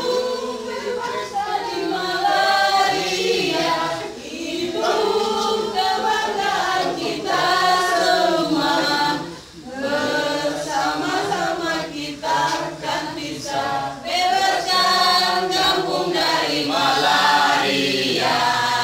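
A group of people, mostly women, singing a song together, with a short break between lines about nine and a half seconds in.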